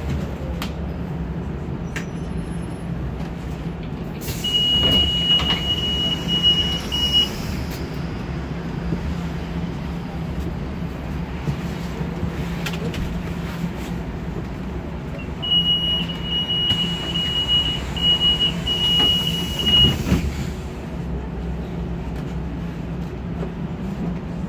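Trolleybus interior with a steady low hum. Twice, about four seconds in and again about fifteen seconds in, a louder stretch of hiss comes with a high-pitched tone broken by short gaps, each lasting a few seconds.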